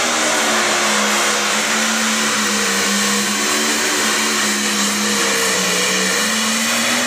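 Light pro stock pulling tractor's turbocharged diesel engine running flat out under load as it drags the weight sled, a loud, steady note that sags slightly and picks back up near the end.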